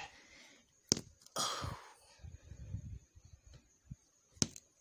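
Heavy stone brought down on a macadamia nut on a concrete slab: two sharp knocks, about a second in and near the end, the second one cracking the hard shell.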